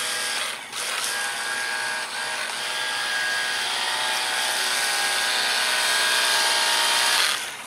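Hart battery-powered pressurized cleaner running, its pump motor whining under the hiss of the foam spray. The sound dips briefly less than a second in and cuts off suddenly near the end.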